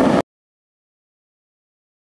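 Dead silence. A steady rushing noise cuts off abruptly a fraction of a second in.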